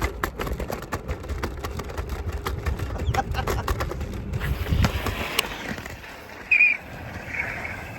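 Bird electric rental scooter rolling over pavement, its small wheels rumbling and clattering with sharp clicks for about five seconds before the rumble dies away. A short high-pitched squeak follows about a second and a half later.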